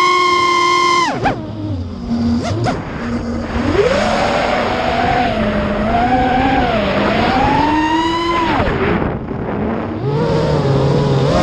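A motor damaged in a crash, running with a pitched whine that glides up and down with speed: high at first, dropping low about a second in, climbing again around four seconds and wavering high, then falling away near the end before rising once more.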